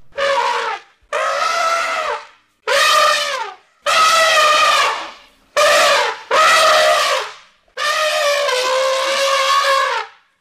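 Music: a wind instrument with a brassy, trumpet-like tone plays a slow tune of about eight held, slightly wavering notes separated by short gaps, the last note the longest.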